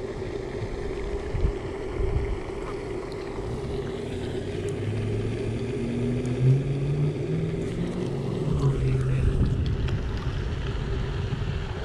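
A steady low motor hum, with wind noise on the microphone. The hum steps up in pitch about five seconds in and eases off near the end.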